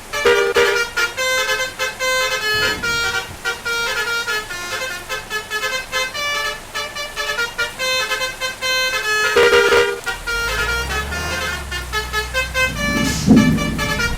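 Bus 'telolet' basuri musical horn playing a quick melody of short, stepped notes. A low engine rumble comes in about ten seconds in.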